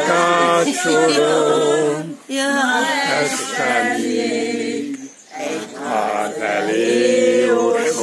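A small group singing a slow Hungarian song unaccompanied, holding long notes. There are short breaths about two seconds in and again around five seconds.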